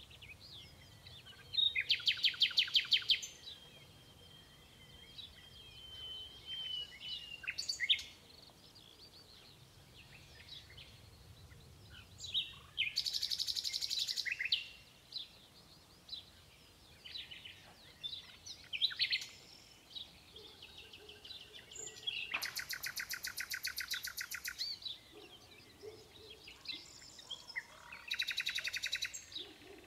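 Common nightingale singing: four loud phrases of fast repeated notes, each lasting a second or two and separated by pauses filled with shorter, scattered notes, plus a long thin drawn-out note just after the first phrase.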